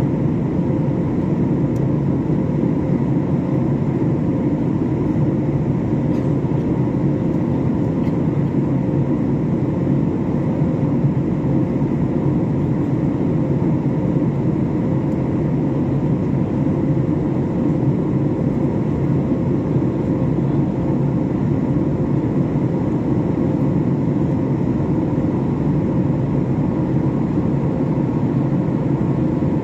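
Steady jet engine and airflow drone heard inside the cabin of a Boeing 737 in flight after takeoff: a deep, even rumble with faint steady whining tones above it.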